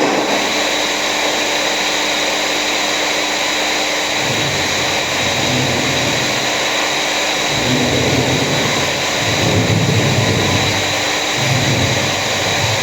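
An electric motor, such as a power tool or workshop vacuum, running steadily with a loud hiss and a faint high whine. A deeper rumble comes and goes in the second half.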